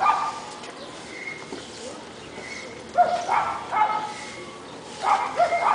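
A dog barking in short calls: once at the start, again about three seconds in, and again near the end.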